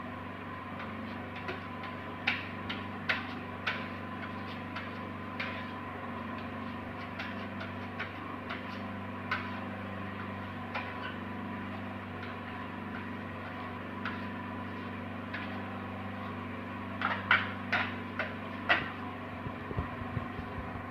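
A hand tool knocks and scrapes against glazed ceramic wall tiles as grout is worked into the joints. It makes scattered sharp clicks, with a quick cluster of them near the end, over a steady low hum.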